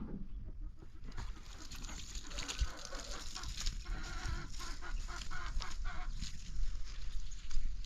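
Farmyard animals calling: a quick run of many short calls starting about a second in.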